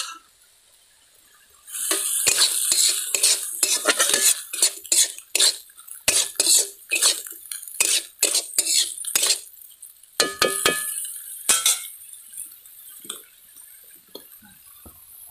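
A steel spatula scrapes and stirs small prawns frying in a steel kadai, in quick repeated strokes over a hiss of frying. A couple of ringing metal clanks follow about ten and eleven seconds in, then the stirring dies down.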